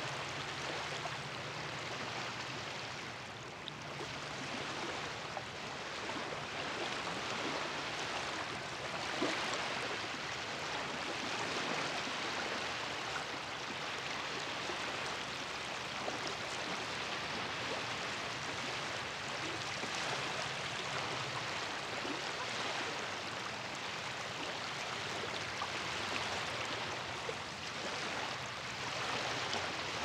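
Small lake waves lapping and splashing steadily against the shore.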